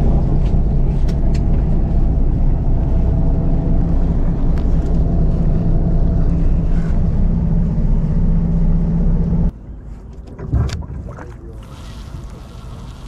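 A boat's engine running with a loud, steady drone, which drops abruptly to a much quieter background about nine and a half seconds in; a single knock follows a second later.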